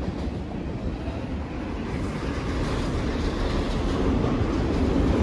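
Double-stack container freight cars rolling past, their steel wheels running on the rails in a steady rushing rumble that grows gradually louder.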